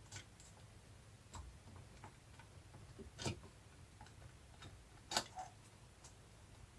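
Faint, irregular clicks and taps of hand tools and small engine parts being handled during engine disassembly, the sharpest about three and five seconds in.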